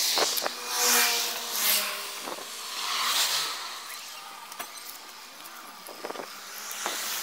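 Rustling and knocking of a handheld phone being moved around: several hissing swells and a few sharp clicks.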